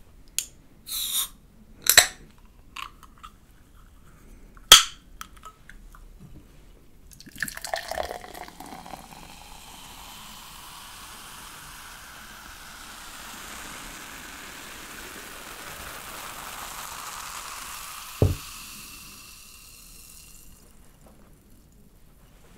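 A can of Coca-Cola is cracked open with sharp clicks and a short hiss in the first few seconds. The cola is then poured into a glass and fizzes steadily for about thirteen seconds, with one dull knock near the end.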